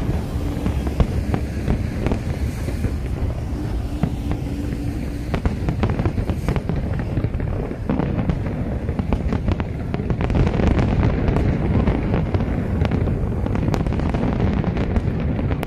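Aerial fireworks display: a dense, continuous barrage of shell bursts and crackling bangs, many in quick succession with no pause.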